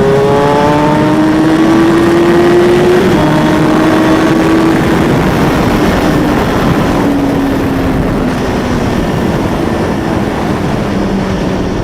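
Motorcycle engine running, its pitch climbing slowly for about three seconds, then dropping and easing down, over a loud rushing noise.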